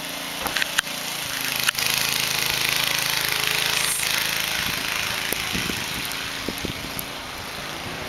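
Suzuki Samurai's engine running while the truck pushes through deep snow, with a loud rushing hiss that swells about two seconds in and slowly fades, and a few sharp knocks near the start.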